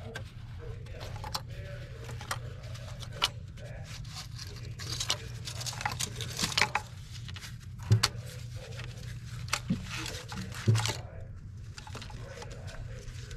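Hands working among the wiring, hoses and fuel rail in a car's engine bay, with scattered clicks, scrapes and light rattles of plastic and metal parts being handled. Sharper knocks come at about three, eight and eleven seconds, over a steady low hum.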